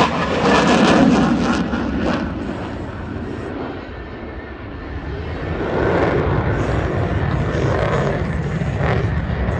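Jet noise from an F-22 Raptor's two Pratt & Whitney F119 turbofans as it manoeuvres overhead. The roar is loudest about a second in, fades somewhat around four to five seconds, and swells again about six seconds in.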